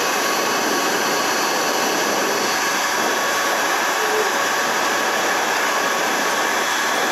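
Electric heat gun running steadily, blowing hot air to shrink adhesive-lined heat-shrink tubing onto a crimped battery cable lug.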